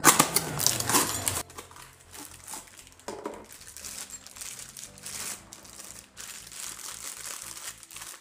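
A cardboard bearing box is handled and opened, then the plastic bag inside crinkles as the bearing housing is unwrapped. The loudest rustling comes in the first second and a half, with quieter crinkling after.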